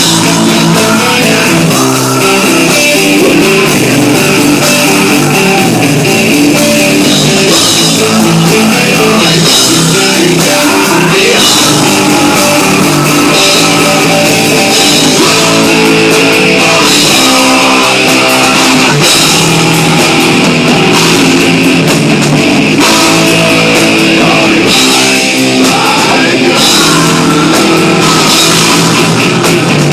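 Loud rock music with guitar and a drum kit, the drums keeping a steady beat.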